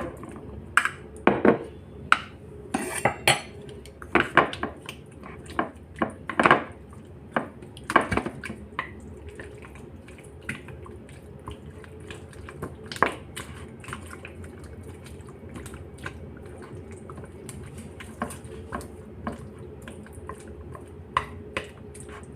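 Utensil clinking and knocking irregularly against a dish while chicken is mixed with its marinade, busiest in the first half and sparser later.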